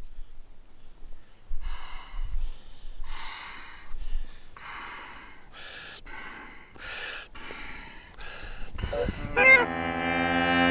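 Podhale bagpipe (koza) being blown up through its blowpipe, about ten breathy puffs of air going into the bag. About nine seconds in, the drone and chanter sound; their pitch slides up as the reeds catch, then settles into a steady drone under the chanter.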